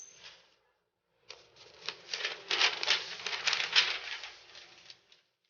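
Paper rustling and crinkling in quick scratchy strokes as the bottom of a cockatiel's cage is lined with paper; it starts about a second in and dies away near the end.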